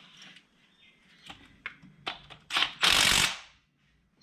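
A power drill runs in one short, loud burst about three seconds in. Before it come a few light clicks and taps of tools being handled.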